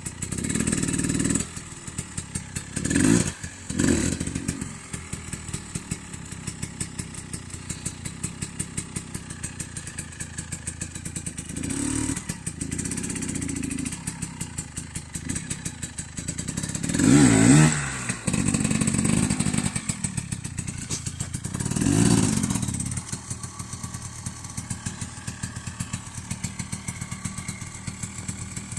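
Enduro dirt bike engine running low and unevenly, with several bursts of throttle that rise and fall. The loudest burst comes about two-thirds of the way through.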